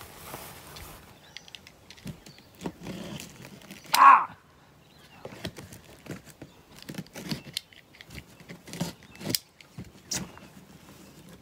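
A knife cutting the packing tape on a large cardboard box, with scattered scrapes, clicks and rustles of the cardboard and one louder, brief sound about four seconds in.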